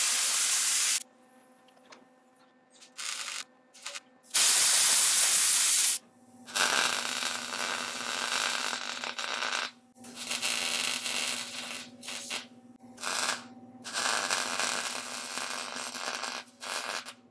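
Two loud bursts of hissing compressed air from an air hose, the second longer, followed by a MIG welder laying plug welds on a steel patch panel in several runs of one to three seconds each, with short breaks between them.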